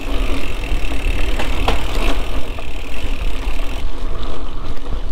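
Wind rumbling over a camera microphone while riding a mountain bike along a trail, with a few sharp clicks and rattles from the bike about one and a half to two seconds in.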